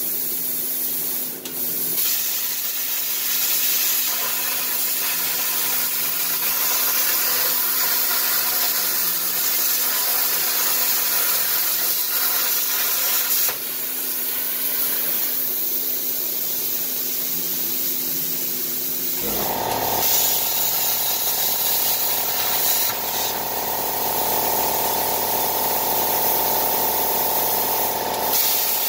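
Everlast PowerPlasma 60 plasma cutter's machine torch cutting sheet metal on a CNC table: a steady hiss of air and arc, with a few brief breaks as the cut stops and restarts. About two-thirds of the way through, a lower hum joins the hiss.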